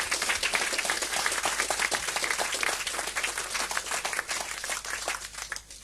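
Concert audience clapping, the applause thinning out and dying away near the end.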